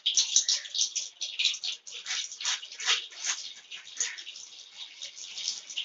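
Butter melting in hot refined oil in a wok, sizzling with a dense run of small, irregular crackles and pops.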